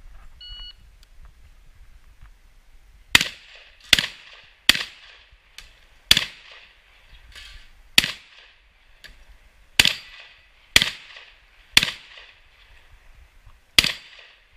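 A short electronic shot-timer beep about half a second in, the start signal, then about three seconds later a shotgun firing nine shots at irregular intervals of roughly one to two seconds, with a couple of fainter knocks between them.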